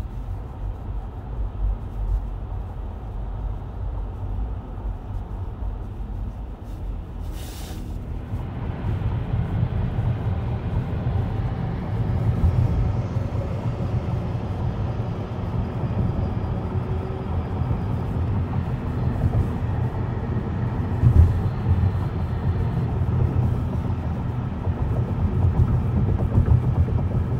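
Steady low road rumble inside a car cabin moving at freeway speed. It grows louder and fuller after about eight seconds, and there is a brief click about seven and a half seconds in.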